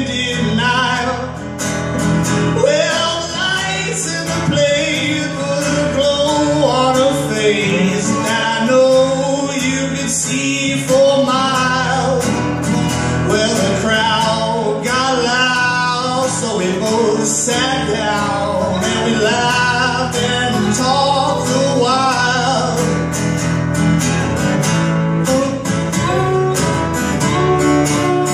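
Live acoustic song: a man singing over two acoustic guitars strumming.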